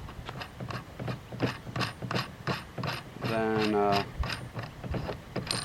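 A run of short metal clicks, about two or three a second, with a brief squeak a little over three seconds in, as the muzzle brake is worked off the threaded end of the rifle barrel.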